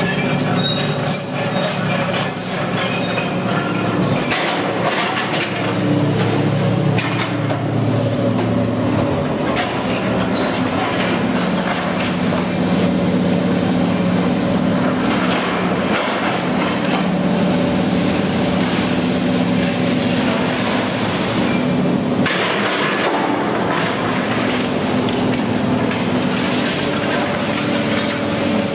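Doosan DX300LC tracked excavator with a demolition grab at work: its diesel engine and hydraulics drone steadily while concrete rubble and steel clatter and scrape as it pulls the structure down. Short high metal squeals come in the first few seconds and again about ten seconds in.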